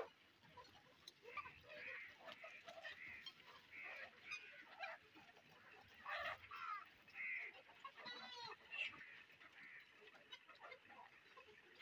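A flock of desi chickens clucking and calling faintly, with scattered short calls and a quick run of rising calls about eight seconds in.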